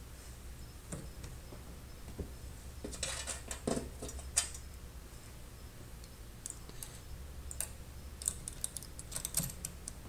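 Scattered small clicks and taps of hands fitting parts at the hub of a go-kart steering wheel, bunched in two flurries about three seconds in and again near the end, over a faint steady low hum.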